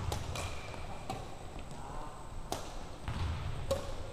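Badminton rally: several sharp racket hits on the shuttlecock, roughly a second apart, with shoe squeaks on the hardwood court in a large, echoing gym.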